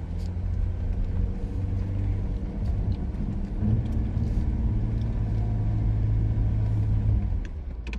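A Jeep's engine running with a steady low rumble, dropping away near the end.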